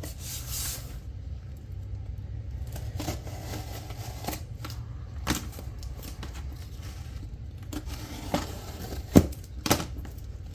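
Folding knife blade slitting the tape and cardboard of a shipping box, with scraping at first and then scattered sharp clicks and knocks as the box is handled, the loudest few near the end.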